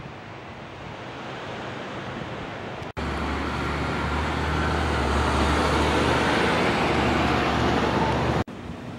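Wind on the microphone at first. After an abrupt cut about three seconds in, louder street traffic noise with a steady low engine hum from a motor vehicle close by, which cuts off suddenly just before the end.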